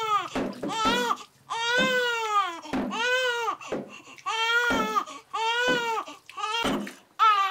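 Newborn baby crying in a string of short wails, each rising and falling in pitch, with brief pauses for breath between them.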